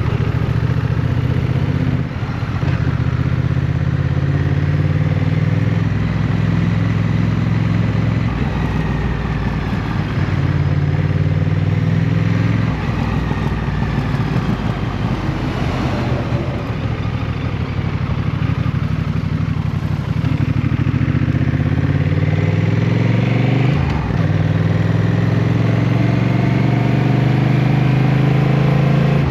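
Motorcycle engine running at road speed, its note rising and falling with the throttle, over steady wind and road noise. About two-thirds of the way through the pitch dips briefly, then climbs steadily toward the end.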